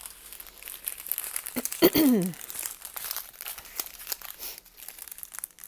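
Crinkling of clear plastic packets of diamond-painting drills being handled and turned over. About two seconds in, a brief hum from a voice falls in pitch.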